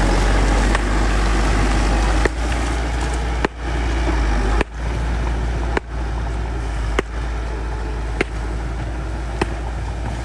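Bulldozer's diesel engine running steadily, with a sharp click or clank about every second and a bit from about two seconds in.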